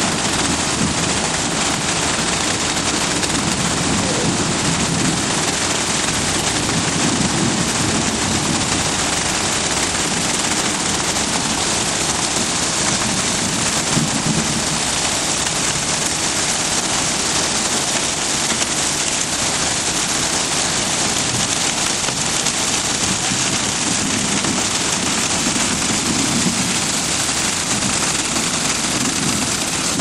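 Self-loading concrete mixer running steadily as it discharges concrete down its chute, a dense, even rattling noise with no pauses.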